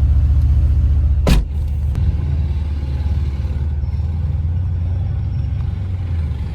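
Mercedes-AMG C63 S engine and exhaust droning under load, with a single sharp crack about a second in, after which the engine note drops and it runs on more quietly.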